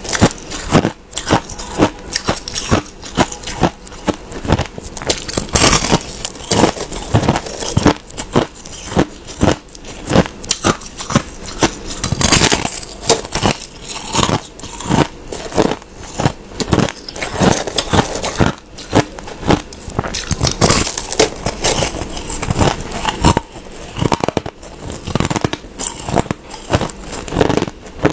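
Crushed ice being bitten and chewed: a fast, uneven run of sharp crunches and cracks, several a second.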